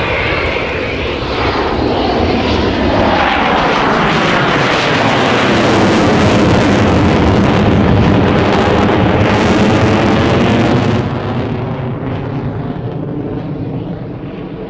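Dassault Mirage 2000 two-seat fighter's single jet engine heard in a flypast: the rush of engine noise builds to a loud peak with a sweeping, phasing quality, then drops off sharply about eleven seconds in as the jet moves away.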